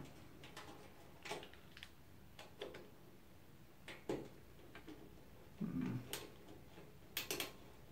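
A screwdriver and metal computer-case parts being worked by hand: scattered light clicks and taps, a handful of them spread across several seconds, with a soft low knock about six seconds in.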